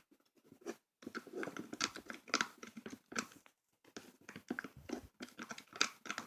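Homemade slime mixture of hair conditioner and powder blush being stirred in a bowl: irregular wet stirring and scraping sounds that begin about a second in.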